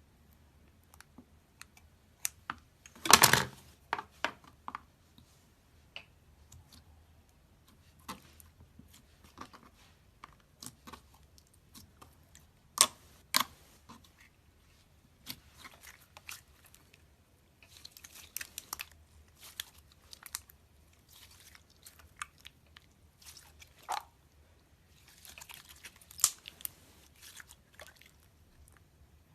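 Slime being squeezed and worked by hand: irregular sharp pops and crackles, the loudest a dense burst about three seconds in, with clusters of crackling later on.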